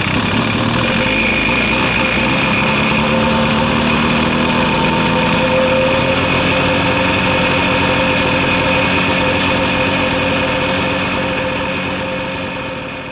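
Ski-Doo Summit 800 two-stroke twin idling steadily just after a cold start at minus 23 degrees, its idle speed creeping up slightly over the first few seconds. The sound fades out near the end.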